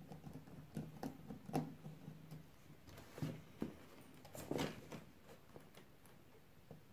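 Faint scattered clicks and short scrapes of a small screwdriver working the screws of an electrical screw terminal block while wire is handled, over a faint low steady hum.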